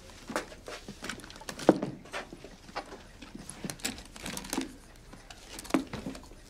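Objects being set down and handled on a table: a scattered series of light knocks and clicks, the sharpest about a second and a half in.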